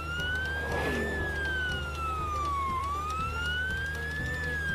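Ambulance siren wailing in slow sweeps, rising and falling in pitch about every one and a half seconds, over a steady low hum.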